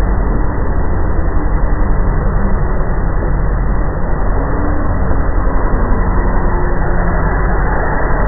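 A loud, steady low drone in the sky, with faint held tones above it and a muffled sound: the kind of 'strange sound in the sky' reported from Slovakia.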